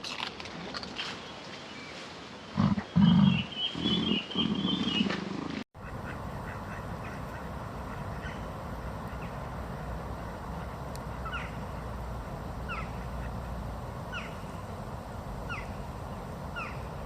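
Animal calls from two different recordings. First come a few loud, low calls with a high warbling call over them. After a sudden cut there is a steady background hiss with faint, short, falling calls repeated about every second and a half.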